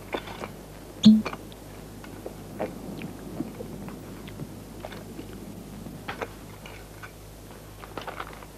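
A man gulping water from a glass flask, among scattered clicks and scuffs of handling, with one loud sharp knock about a second in.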